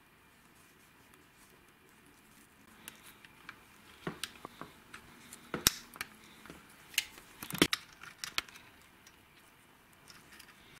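Scattered small clicks and taps of wire spade connectors being pushed onto terminals and handled against a drill housing, starting a few seconds in. The two sharpest snaps come a couple of seconds apart past the middle.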